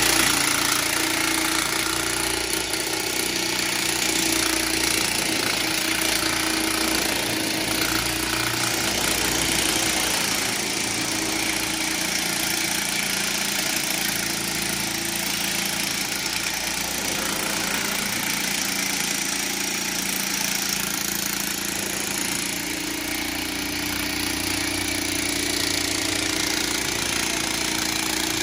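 Electric demolition hammer running steadily, hammering an earth rod down into the ground.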